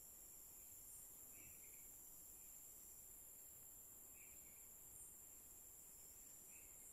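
Faint forest ambience: a steady high-pitched insect drone, with soft short chirps from a distant animal coming every second or two.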